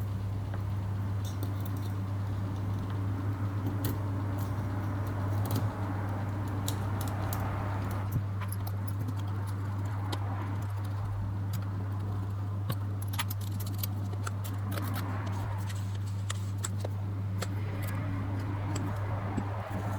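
Scattered light clicks and clinks of small metal lens parts being handled and fitted, over a steady low hum.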